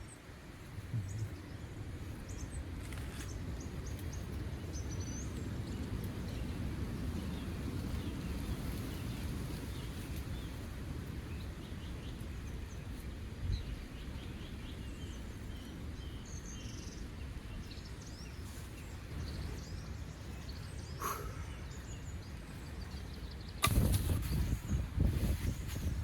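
Steady low wind noise outdoors, with faint scattered bird chirps. Near the end comes a run of loud thumps.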